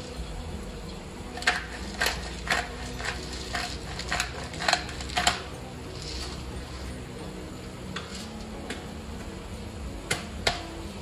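Kitchenware clinking and knocking as it is handled, about eight sharp clinks in quick succession over the first five seconds and a few scattered ones later, over a steady kitchen background noise.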